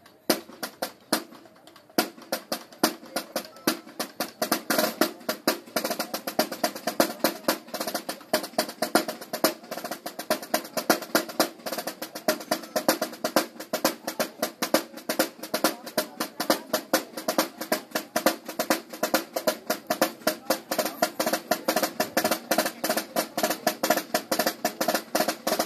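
Drum corps of snare drums and larger drums playing a fast cadence with rolls, a dense, even stream of strokes. The playing is sparse and quieter for about the first two seconds, then fills out.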